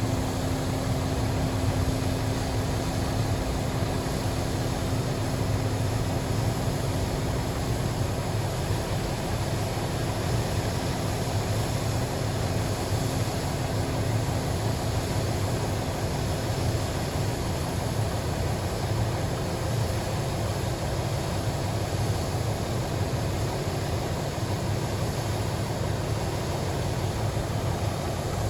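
Diesel or gas engine of a piece of heavy equipment running steadily under demonstration, a low rumble with a faint steady whine that weakens after about eight seconds.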